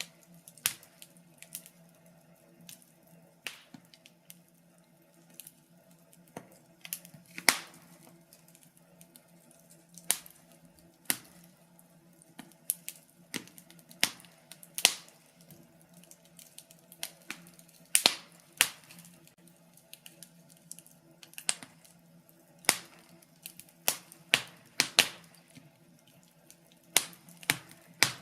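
Wood fire crackling in a fireplace: irregular sharp pops and snaps, a few to several every second, some much louder than others, over a faint steady hum.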